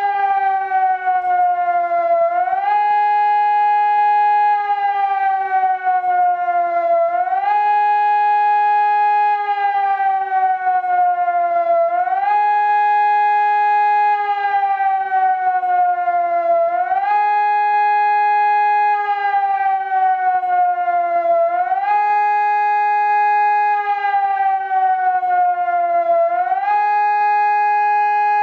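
SES600 Compact electronic civil-defence siren sounding a wailing tone. The pitch jumps up quickly, holds for about two seconds, then slides slowly down, and the cycle repeats about every five seconds. It is the German "Warnung der Bevölkerung" public-warning signal.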